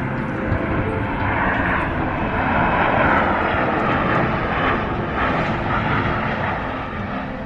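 Jet airliner passing close by, its engine roar swelling to a peak about three seconds in and then easing off.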